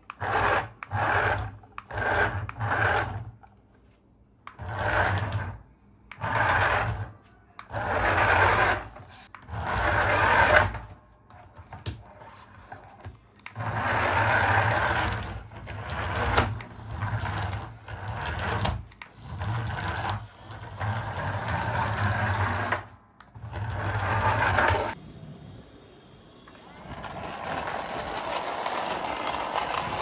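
Toy RC car's small electric drive motor and plastic gearbox whirring in short bursts of one to two seconds, stopping and starting about a dozen times as the remote's buttons are pressed. Near the end it runs on continuously.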